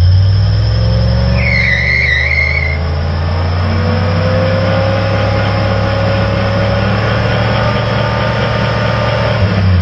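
1964 Chevy pickup doing a burnout: the engine runs hard and steady while the rear tyre spins on the concrete, with a brief tyre squeal about one and a half seconds in.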